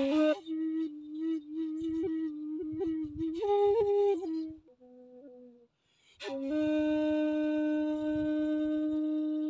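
Shakuhachi, the bamboo end-blown flute, playing a slow solo phrase: a low held note decorated with quick finger flicks, rising briefly to a higher note and falling to a soft, quiet note. After a short pause for breath just past halfway, a sharp attack drops into one long, steady held note.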